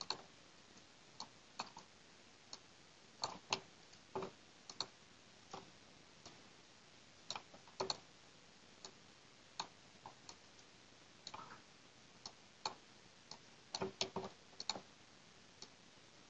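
Faint, irregular computer mouse clicks: single clicks and quick pairs spaced a second or so apart, with a brief cluster of several clicks near the end.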